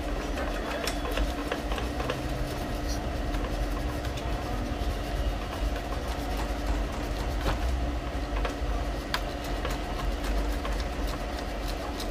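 Cloth rubbing along an Epson L3110 inkjet printer's carriage guide rail, with scattered light clicks, over a steady low mechanical hum.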